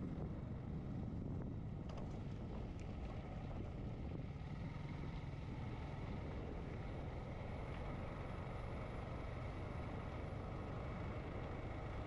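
Motorcycle engine running steadily while riding, with wind rushing over the helmet-mounted microphone.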